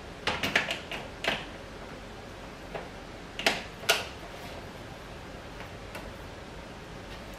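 Small clicks and taps of a camera body being fitted and locked onto the head of a camera slider. A quick run of clicks comes in the first second or so, then two sharper clicks about three and a half seconds in, and a faint tick or two later.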